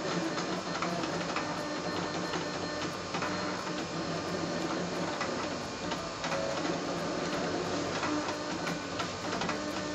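Vinyl cutting plotter at work cutting a sticker: its stepper motors drive the blade carriage and feed rollers in short, shifting whirs, with frequent small clicks as the head changes direction.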